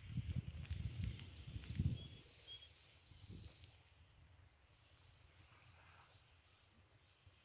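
Wind buffeting the phone's microphone in irregular low rumbles, strongest in the first two seconds, then quiet open-air shore ambience. Two short high chirps come a little over two seconds in.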